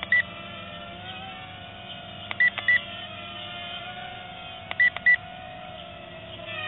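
Double electronic beeps repeating about every two and a half seconds, each pair led by a click, over the steady whine of a small toy drone's motors, the whine's pitch wandering slightly.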